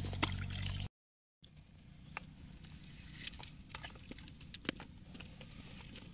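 Many soft, irregular ticks and patters from live freshwater shrimp flicking in a heap among snails in a container, over a faint low rumble. The sound drops out briefly about a second in.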